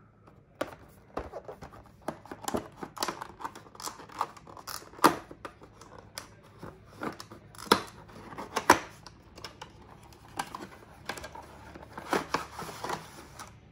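Cardboard product box being handled and opened by hand: irregular scrapes, taps and clicks of card sliding and rubbing, with sharper knocks about five and nine seconds in.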